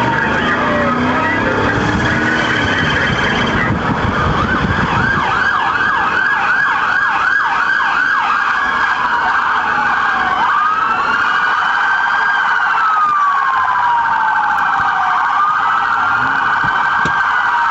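Police car sirens sounding during a pursuit, several overlapping. About five seconds in they switch to a fast yelp, roughly two to three sweeps a second, then from about ten seconds to a slow rising and falling wail. Engine and road noise are heard under them in the first four seconds.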